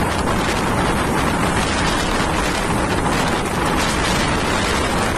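Strong cyclone wind driving a dust storm, blowing hard across the microphone: a loud, steady rush of noise with no let-up.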